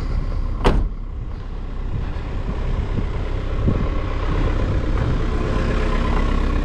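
Caterpillar 305.5E mini excavator's diesel engine idling steadily just after a cold start, warming up, and growing louder from about two seconds in. A single sharp knock sounds less than a second in.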